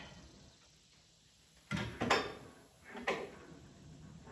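Three sharp knocks: two close together a little under two seconds in and a third about a second later, after a near-quiet start.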